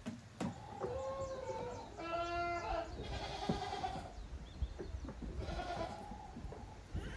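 Goat kids bleating, about four calls one after another, one of them rougher than the rest. Low knocking and rustling sound underneath.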